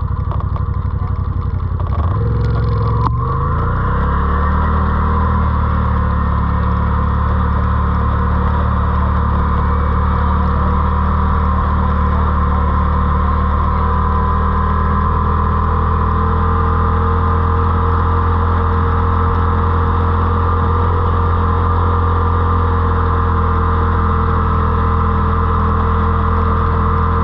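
ATV engine picking up revs about two to four seconds in, then running steadily at a constant speed.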